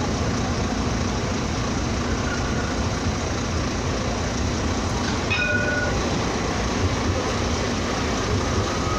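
CAF Urbos 3 tram passing at low speed along a city street, a steady rumble mixed with road traffic. A short high tone sounds about five seconds in.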